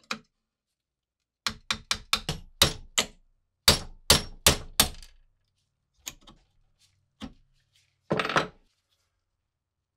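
Hammer striking a pin punch to drive the old metal pin out of a cracked wooden saw handle held in a vise. About a dozen sharp metallic blows come in two quick runs, then two lighter single taps and a short clatter near the end.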